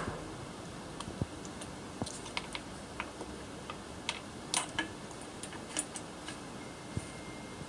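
Scattered light clicks and taps of a compression tester's hose adapter being handled in a spark plug well and threaded into the plug hole. The loudest clicks come in a quick cluster about four and a half seconds in.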